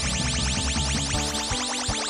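Upbeat electronic background music with fast, repeating rising synthesizer sweeps over steady notes and a regular low beat.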